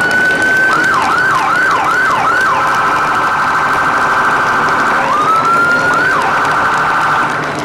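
Emergency vehicle siren stepping through its modes: a slow rising wail, a run of quick falling yelps, then a rapid warble, then the wail and warble once more.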